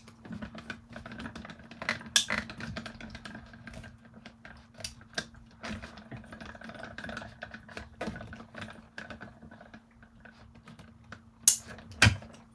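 Sizzix Sidekick hand-cranked die-cutting machine being cranked, its rollers pulling an acrylic plate-and-die sandwich through with a rapid run of small clicks. A couple of sharper knocks come near the end as the plates come out.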